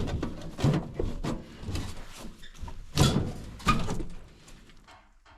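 Several irregular knocks and clunks of hard objects being handled and struck, the loudest about three seconds in.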